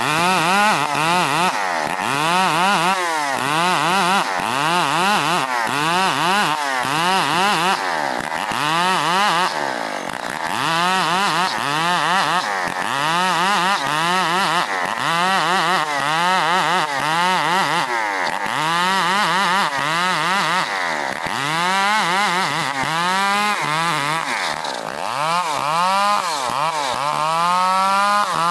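Chinese-made copy of a STIHL 070 two-stroke chainsaw ripping a log lengthwise into boards. Its engine pitch dips and climbs again about once a second as the bar is worked through the cut.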